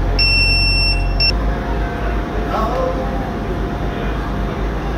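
Class 175 diesel multiple units idling with a low engine drone as one unit eases up to couple to the other, the engine note shifting about a second in. A high electronic beep sounds for about a second at the start.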